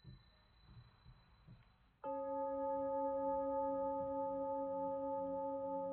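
A high-pitched chime rings and fades away, then about two seconds in a singing bowl is struck and rings on steadily with several overlapping tones, a ritual sound used to open a tarot reading.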